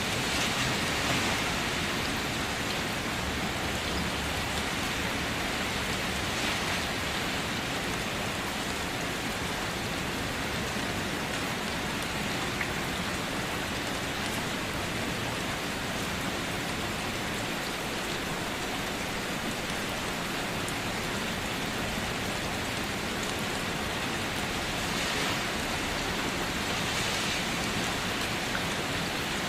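Steady rain falling, a dense even patter of drops, swelling slightly a few times.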